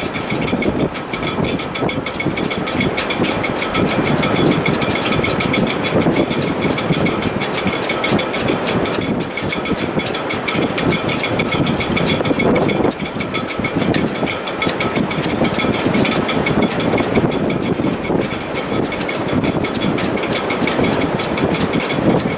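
Strong wind in a sailboat's shrouds and rigging: a continuous loud rushing with faint high whistling tones held steady through it.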